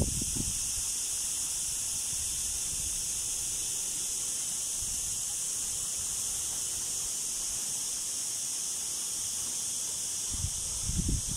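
A steady high-pitched hiss throughout, with brief low rumbles of wind buffeting the microphone at the start and again near the end.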